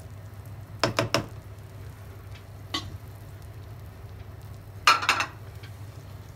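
Cooking utensils knocking against a stainless steel frying pan: three quick knocks about a second in, a single tap a little before three seconds, and a louder clatter around five seconds in, over a low steady hum.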